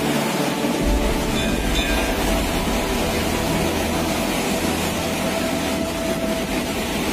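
Floodwater rushing past in a swollen river, a loud, steady roar of water, deepening about a second in.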